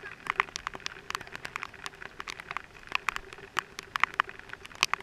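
Raindrops hitting the housing of a helmet-mounted camera: a dense, irregular run of sharp ticks.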